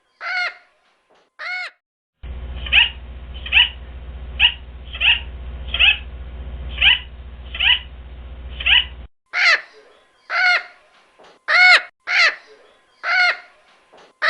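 A bird giving short, harsh calls over and over, about one a second, each call arching up and falling in pitch. Through the middle the calls come from a duller recording with a low hum beneath them.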